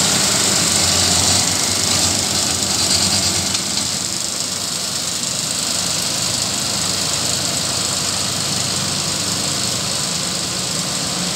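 Claas Arion 640 tractor's engine running steadily while it pulls a Claas Rollant 454 round baler, with a strong mechanical hiss over the engine note. It gets slightly quieter after the first few seconds as the rig moves off.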